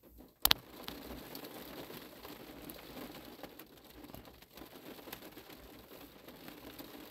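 A sharp double click about half a second in, then faint crackling noise with scattered small ticks.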